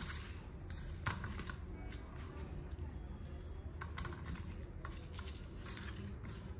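Boiled eggs and potato pieces being tossed by hand in a stainless steel bowl to coat them with turmeric and salt: scattered light clicks and taps against the metal over a low steady hum.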